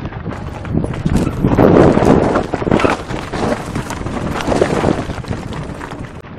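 Mountain bike clattering down a rocky dirt trail: tyres crunching over loose stones and volcanic rubble, with a rapid rattle of knocks from the bike, loudest a second or two in.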